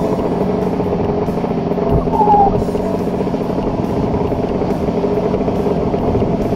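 Kawasaki KX 125 two-stroke single-cylinder engine running at a steady, moderate speed while ridden, being run in on a freshly replaced piston. A brief knock and a short falling squeak about two seconds in.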